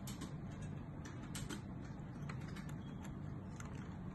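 Handling noise: fingers working a small silicone camera case while threading a thin lanyard cord through it, giving irregular faint clicks and rustles over a steady low hum.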